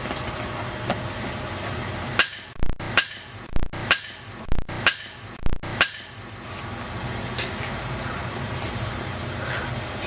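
A baseball bat smashing an iPod lying on the ground: about eight sharp whacks in quick succession, roughly two a second, starting about two seconds in and stopping about six seconds in.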